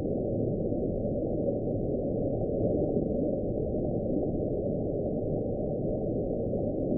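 Low, steady underwater rumble from a hydrophone recording, with no distinct call in it.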